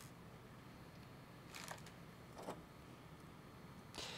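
Near silence broken by a few faint clicks and taps, with one sharper click near the end: small handling sounds of screws and a screwdriver on a hard drive's circuit board as the board is taken off.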